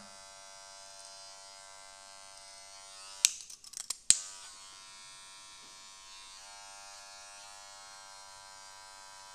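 Electric hair clippers buzzing steadily while blending a sideburn. About three seconds in they are switched off with a click, a few smaller clicks follow, and a second later they click back on and the buzz resumes.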